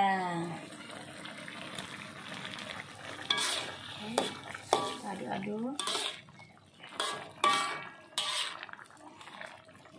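Metal spatula stirring curry in a wok, with a series of sharp scrapes and clinks against the pan over a faint simmering hiss.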